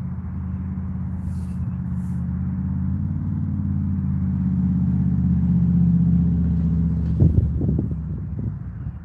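Pickup truck driving past, a low engine drone that swells to its loudest about six seconds in and then fades. Around seven seconds in, several brief rough gusts of wind hit the microphone.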